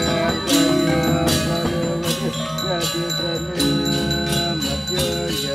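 Music: a melody with notes that bend in pitch, over regular strikes of bell-like metal percussion.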